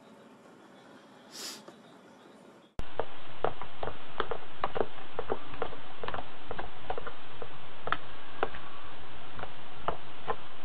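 After a faint stretch with one short hiss, loud, irregular sharp clicks come a few times a second over a steady hiss, from a budgerigar pecking and clicking at a plush toy.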